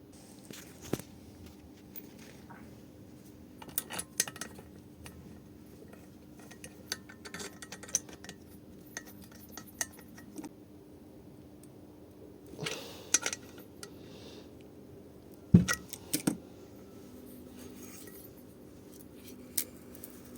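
Metal tools and engine parts clinking and knocking at irregular intervals during hand assembly of a small single-cylinder engine, with a sharper knock about two-thirds of the way through. A faint steady hum runs underneath.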